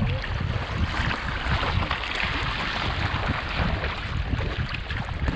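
Wind buffeting the microphone over the steady rush of choppy water around a kayak under sail.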